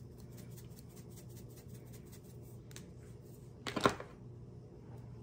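A seasoning shaker being shaken over a bowl of pasta salad: a run of light, quick ticks and rattles, then one louder knock nearly four seconds in.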